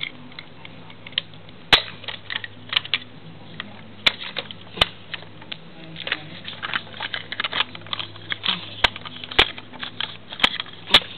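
Hard plastic clicks and taps at irregular intervals from a GeoTrax toy train remote control being handled and worked, over a steady low hum.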